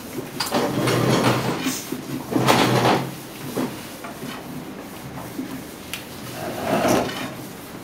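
Thin wooden rolling pins rolling and knocking on wooden boards as lavash dough is rolled out: several longer rolling strokes and a few sharp taps.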